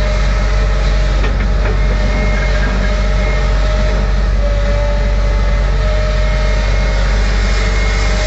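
JCB JS220 tracked excavator's diesel engine running steadily while digging, with a faint whine that comes and goes over it. There are a few short knocks a little over a second in.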